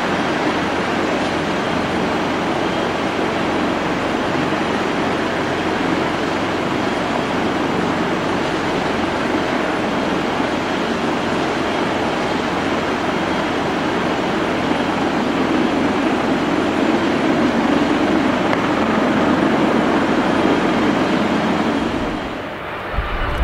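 Boeing 777-300ER's GE90 jet engines at taxi power as the airliner rolls past, a steady rushing whine-and-roar that grows somewhat louder in the later seconds, then falls away abruptly near the end.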